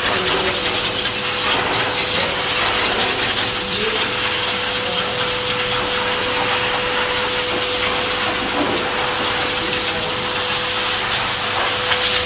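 Pet grooming blower dryer running steadily, blowing air through its hose onto a wet dog's coat after a bath: a continuous rush of air with a constant mid-pitched whine.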